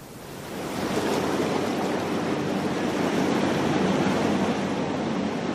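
Sea waves and surf washing steadily, fading in over the first second.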